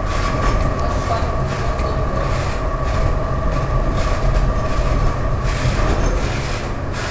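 Old tram running along its rails, heard from on board: a steady rumble of wheels on track with a steady whine and scattered clicks.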